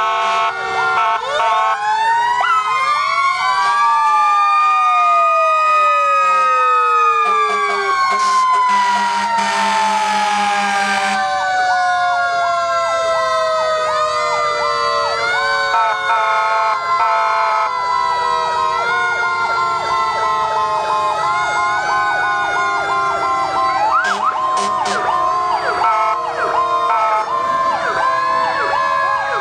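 Several fire engine sirens sounding together. One winds up in pitch early on and then slowly winds down over many seconds, while others warble rapidly up and down, with a brief burst of hiss about a third of the way in.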